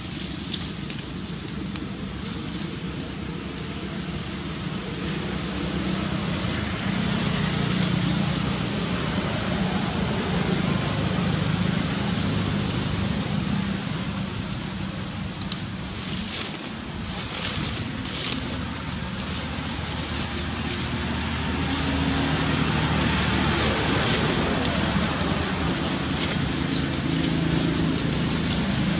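Steady outdoor background din: a low rumble with a steady high hiss over it, and one sharp click about fifteen seconds in.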